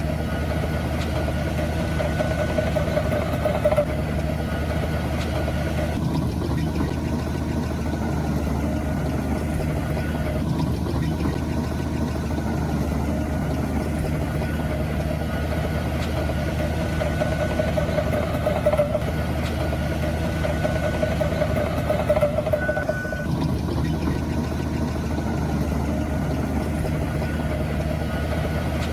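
Diesel engine of heavy earthmoving machinery running steadily, with a steady higher whine over the low engine note that shifts slightly a few times.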